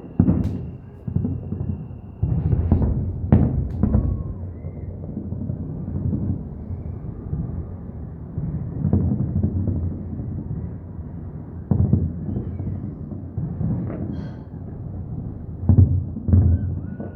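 Fireworks exploding overhead: a continuous rumble of overlapping deep booms, with sharp cracks standing out about two and a half seconds in, again around three seconds, and several more in the last third.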